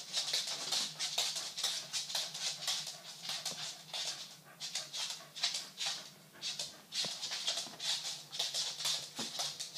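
Chihuahua scratching and rubbing against fabric sofa upholstery: a fast, uneven run of scratchy rustles, several a second.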